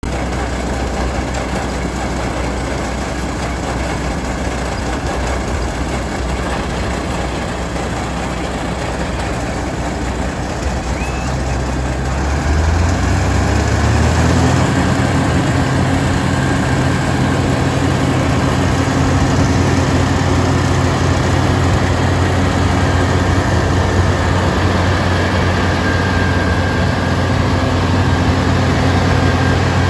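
New Holland TX64 combine harvester's diesel engine running steadily at low speed, then revved up about halfway through and held at the higher speed.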